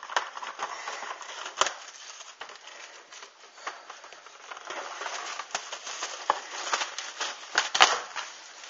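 Plastic shrink wrap on a cardboard collector's box crinkling and crackling as the box is handled and the wrap worked at, with irregular small clicks and two sharper knocks, about one and a half seconds in and near the end.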